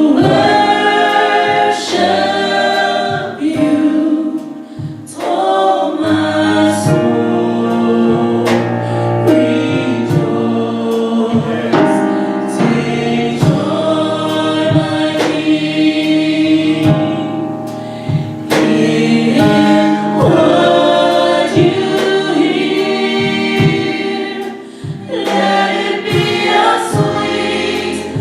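Gospel vocal group singing a worship song in harmony.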